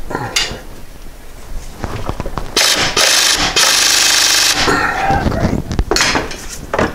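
Impact wrench hammering for about two seconds on a frozen Allen bolt in the water pump pulley, with a few sharp metal clanks of tools and a pry bar before and after.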